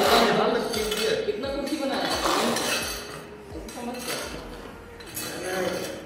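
Gravel aggregate and cement being mixed by hand on a hard floor: stones clinking and scraping as they are turned with a plastic scoop and bare hands. It is loudest in the first couple of seconds.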